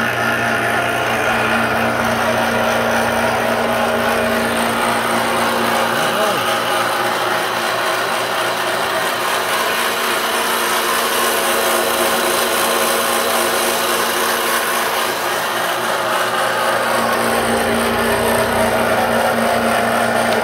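Old Craftsman table saw running on its General Electric electric motor, belt-driving the blade: a loud, steady running noise over a constant hum. It has a growling note that the owner puts down to motor bearings that should have been replaced.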